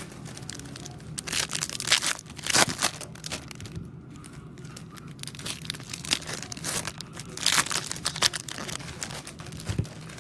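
Foil trading-card pack wrappers being torn open and crinkled, in irregular crackling bursts that are loudest about two seconds in and again near eight seconds, over a faint steady low hum.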